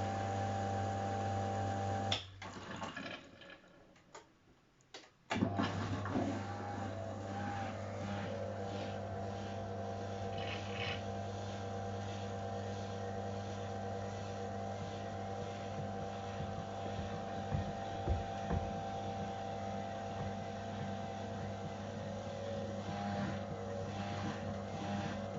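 AEG Öko-Lavamat 693 washing machine's drum motor running with a steady hum. About two seconds in it stops with a click and goes quiet for about three seconds, then starts again with a click and runs on. This is the pause between the drum's turns during the wash.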